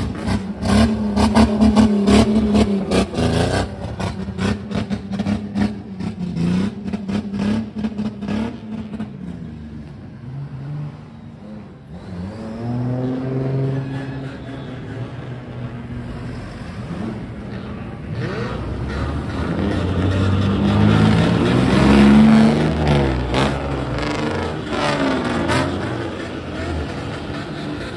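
Several modified cars' engines revving, the pitch repeatedly rising and falling, over a steady low idle. Rapid crackling comes from the exhausts in the first few seconds, and the overlapping revs build to their loudest about three quarters of the way through.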